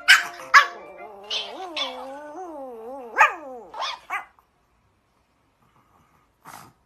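Pomeranian puppy yapping in short, sharp barks, with a wavering howl that rises and falls beneath them for about three seconds. It falls quiet after about four seconds, apart from one short faint sound near the end.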